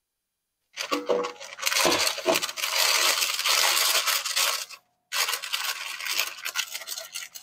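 Parchment paper crinkling and rustling as it is handled around batter in a cake pan, starting about a second in, with a brief break about five seconds in.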